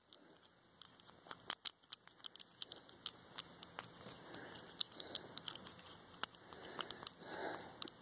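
Faint, irregular small metallic clicks and scrapes of a lock pick working the brass pin tumblers of a Chateau C870 stainless-steel disc padlock held under light tension. Soft rustling of fingers on the lock body swells a little past the middle and again near the end.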